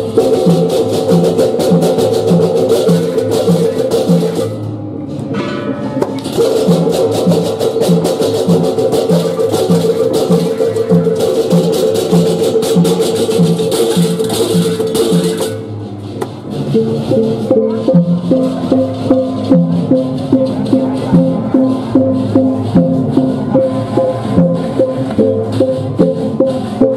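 Balinese baleganjur processional gamelan playing: dense clashing of cengceng hand cymbals over ringing gong tones and a steady pulsing drum beat. The cymbals drop out briefly twice, near the start and about halfway through.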